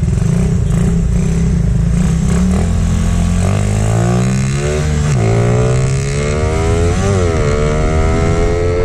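Suzuki Raider 150's single-cylinder four-stroke engine, bored out to 167cc with a 66 mm piston kit and still in break-in, pulling away under acceleration. The engine note climbs in pitch and drops at upshifts about five and seven seconds in and again near the end.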